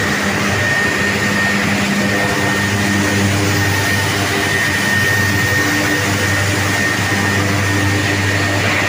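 Sugar mill machinery running: a steady industrial noise with a low hum and a thin, steady high-pitched whine. The low hum grows stronger about three seconds in.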